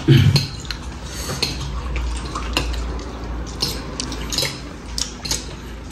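Forks and knives clinking and scraping on dinner plates as chicken is cut and eaten, a scattering of light irregular clicks.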